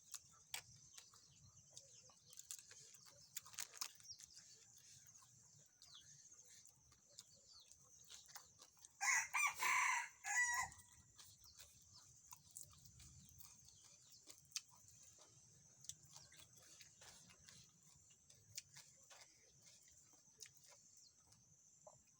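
A rooster crowing once, about nine seconds in, over a faint steady high-pitched whine in the background.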